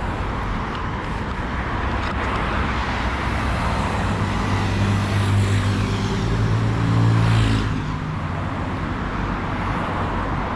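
Road traffic noise, with a vehicle engine passing close, loudest about seven seconds in and then fading.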